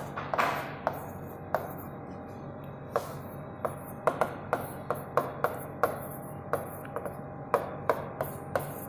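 Stylus tapping and clicking on the glass of an interactive touchscreen display while handwriting: about twenty sharp, irregular clicks, with a pause of over a second near the start, over a faint steady hum.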